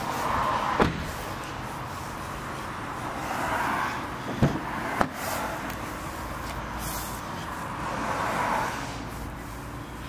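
Handling around an open car door: a few sharp clicks and knocks, one about a second in and two close together around the middle, over a steady low hum and soft rustling.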